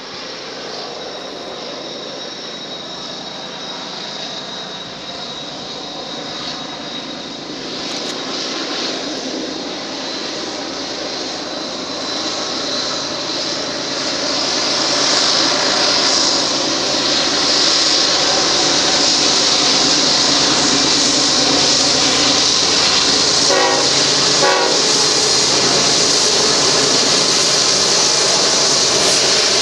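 BNSF intermodal freight train's diesel locomotives and rolling cars approaching and passing, a steady rumble with a hiss of steel wheels on rail that grows louder over the first half and then holds loud. Two short wavering tones sound about two-thirds of the way through.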